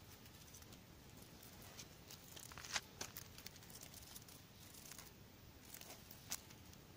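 Faint scratches and rustles of a thin twig dragged over gravelly dirt while a cat bats at it with its paws, with a few sharp clicks around the middle.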